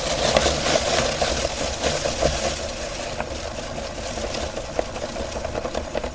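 Electric meat grinder running steadily as it grinds a cookie, its motor hum mixed with small irregular clicks.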